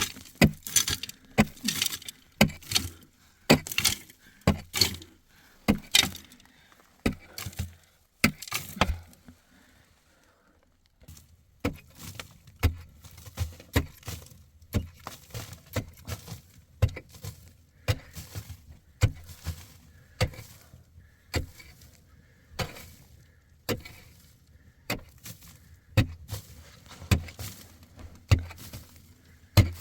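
Repeated sharp strikes, roughly one or two a second, with a short break about ten seconds in.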